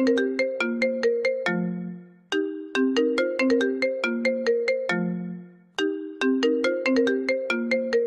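iPhone ringtone playing: a short melody of quick, sharply struck notes that ends on a lower held note, looping about every three and a half seconds.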